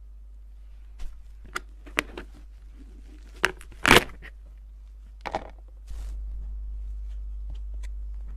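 Slime being squeezed and pressed by hand, giving a scatter of irregular crackles and pops, the loudest about halfway through, over a steady low hum.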